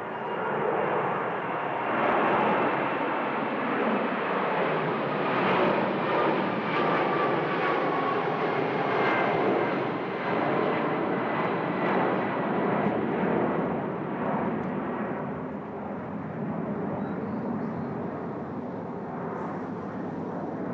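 Airbus A300B4 airliner's twin turbofan engines going past: a loud, rushing jet noise with a faint whine that slides down a little in pitch. It builds over the first couple of seconds and fades from about fifteen seconds in.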